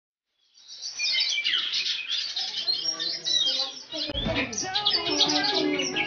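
Oriental magpie-robin (kacer) singing a loud, varied song of quick high chirps and whistles, starting about half a second in. Lower background sound joins beneath it about four seconds in.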